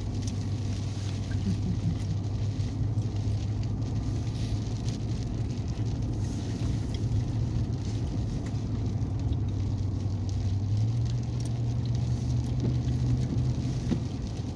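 Four-wheel-drive vehicle driving on a snowy road, heard from inside the cab: a steady engine hum over tyre and road noise, the engine note rising slightly about eleven seconds in.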